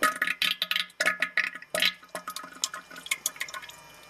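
Water splashing and dripping: dense, irregular splashes for about the first two seconds, then lighter scattered drips.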